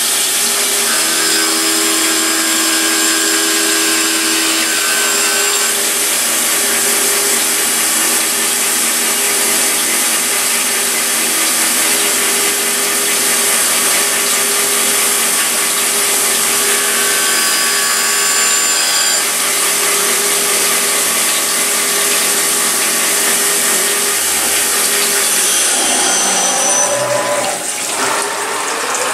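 CNC milling machine cutting a metal part with an end mill under flood coolant: a steady hiss of coolant spray and cutting, with motor whine that comes and goes as the tool moves. About 26 seconds in the cut stops, leaving mostly the sound of coolant streaming.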